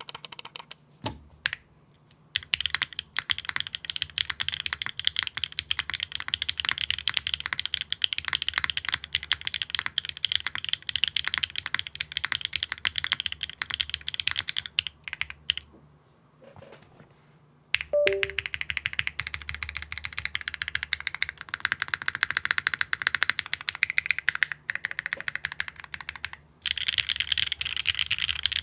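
Fast, continuous typing on a Neo65 Core Plus mechanical keyboard with a carbon fiber plate, GMK keycaps and Wingtree tactile switches. The keystrokes make a dense, deep, thocky clatter, broken by a few brief pauses.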